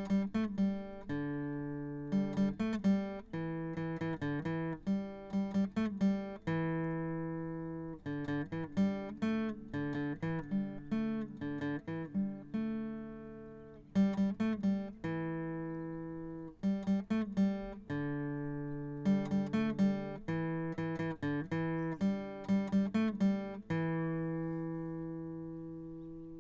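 Outro music: a plucked acoustic guitar playing a picked melody over ringing chords, ending on a chord left to fade out.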